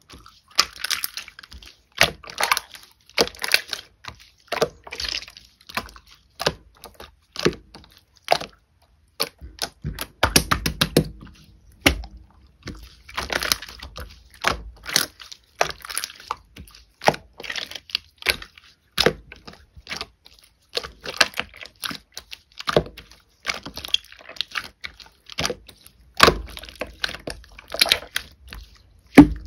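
Pearl slime being pressed, folded and poked by hand: an irregular run of sticky clicks and small pops with wet squishing.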